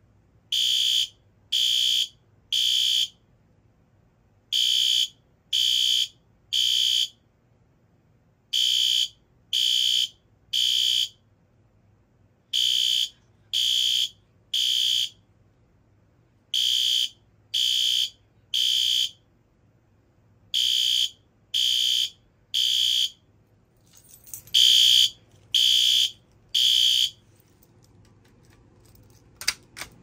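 Fire alarm horn strobe sounding the temporal-3 evacuation pattern, set off by the manual pull station: three half-second high beeps, a pause, and the group repeated seven times. After the last group the horn stops, and there is handling with a couple of sharp clicks near the end.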